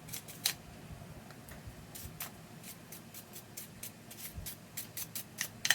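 A toothbrush scrubbing the parts of a Tippmann 98 Custom paintball marker: a quick, uneven run of short scratchy strokes. This is cleaning debris off the sliding parts before reassembly.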